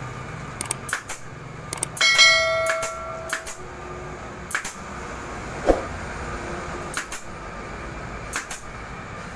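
Pneumatic staple gun running off an air compressor, driving staples into a motorcycle seat cover: a string of sharp snapping shots at irregular intervals, several in quick pairs. About two seconds in, a metallic ring sounds for about a second.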